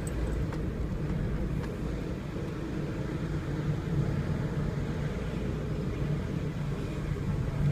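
Car engine and road noise heard from inside the cabin while driving: a steady low rumble with a faint engine hum.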